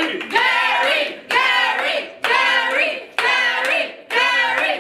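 A crowd chanting "Gary!" in unison, five times at about one a second, with hand clapping.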